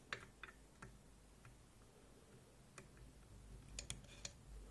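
Faint, scattered small clicks from a lock pick working the finger pins of a Ruko Triton lock, with a quick run of clicks near the end, as pins are lifted and set.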